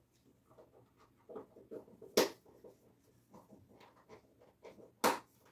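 Sounds of a man lifting dumbbells: faint rustling and breathing, broken by two short sharp sounds, one about two seconds in and one near the end.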